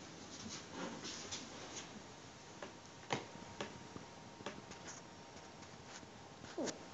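Faint rustling and scattered soft clicks from petting a four-and-a-half-week-old Alaskan Malamute puppy as it wriggles on its back and paws at the hand. One sharper click comes about three seconds in, and a short falling squeak near the end.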